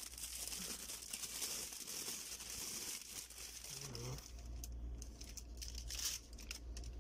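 Clear plastic shrink wrap crinkling and tearing as it is peeled off a boxed condenser microphone. The crackling is dense for about four seconds, then thins to a few scattered crackles.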